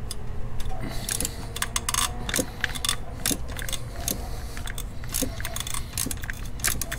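Hand ratchet loosening a spark plug: runs of quick pawl clicks as the handle is swung back and forth, at an uneven pace.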